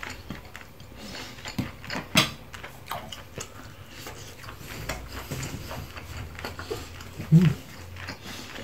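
Steamed lobster shell being cracked and pulled apart by hand, with many short sharp cracks and clicks and the sounds of eating; the loudest crack comes about two seconds in. A brief low hum of a voice is heard near the end.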